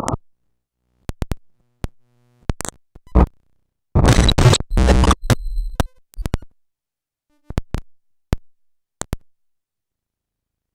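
Glitch electronic noise: a steady wash of noise cuts off abruptly at the start, then scattered sharp digital clicks and pops. A loud, harsh stretch of noise about four seconds in lasts roughly a second, followed by a few more clicks that stop well before the end.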